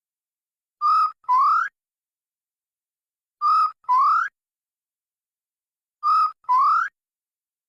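Grey peacock-pheasant calling: a loud two-note whistle, a short level note followed by a longer note that rises in pitch, repeated three times about every two and a half seconds.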